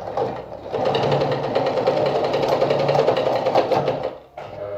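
Sartina e-100 sewing machine stitching at speed. It picks up about a second in, runs steadily in a fast even rhythm, and stops shortly before the end.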